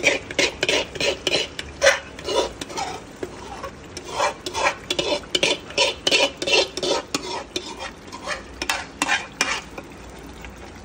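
A steel spoon scrapes and knocks against metal pans in quick repeated strokes, about two or three a second, as chili paste is scraped out into a kadai of hot oil with fried garlic. The paste sizzles as it goes in. The strokes thin out shortly before the end.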